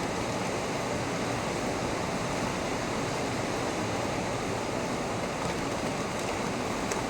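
Heavy rain falling steadily, a dense, even rush with no thunder.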